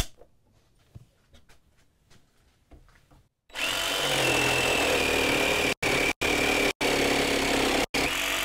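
A cordless DeWalt jigsaw with a Diablo general-purpose blade cutting through a wooden board, starting about three and a half seconds in: a loud, steady cutting noise with a high whine over it. The cut is super aggressive and fast, leaving heavy tear-out. Before the cut there are a few light clicks as the blade is fitted into the saw.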